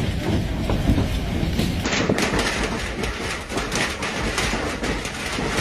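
Heavy hail pelting down, a dense clatter of countless hailstones striking water, paving and grass with many sharp individual hits. About two seconds in the sound changes abruptly to a brighter, crisper rattle of stones hammering wet pavement.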